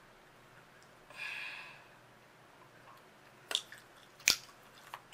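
Wet mouth sounds of gum chewing and lips pressing together: a soft hissy smack about a second in, then a few sharp clicks in the second half, two of them loud.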